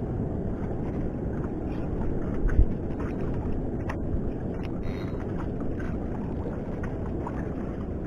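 Steady wind rumble on the microphone over choppy water, with a few light clicks and one dull knock about two and a half seconds in.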